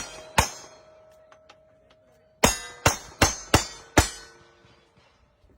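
Cowboy action gunshots at steel targets, each crack followed by the plate ringing. One shot comes about half a second in with a ring that lasts about two seconds. After a pause, five shots follow rapidly, about two and a half a second, with rings overlapping.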